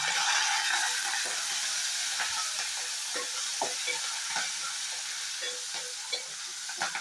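Tempering (tadka) frying in hot oil in a metal pan: crushed garlic and curry leaves sizzling with mustard seeds, cumin and dried red chillies, stirred with a steel ladle that scrapes the pan. The sizzle is loudest at first and eases a little.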